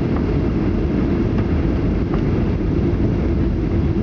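Steady rumble of a Ryanair Boeing 737-800's jet engines and rushing air, heard from inside the passenger cabin during the descent to land.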